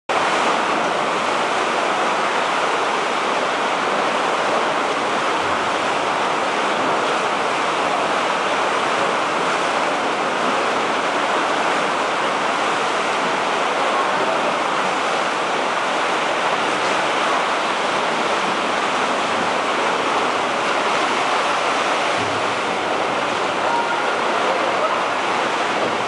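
Sea surf surging and splashing against the rock walls inside a sea cave: a loud, steady, unbroken wash of water noise.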